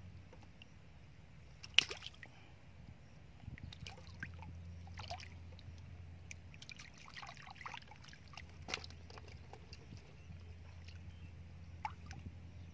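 Hands working in shallow muddy water, with faint sloshing and scattered small splashes. The sharpest splash comes about two seconds in, over a faint low steady hum.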